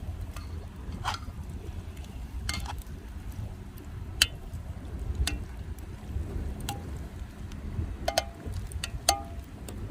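Wind rumbling on the microphone, with scattered sharp clicks and light clinks, a couple of them ringing briefly near the end, as of small camp cooking gear being handled.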